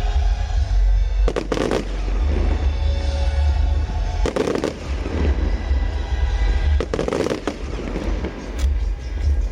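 Fireworks show: aerial shells bursting, with three crackling bursts about three seconds apart, over a deep steady rumble and music.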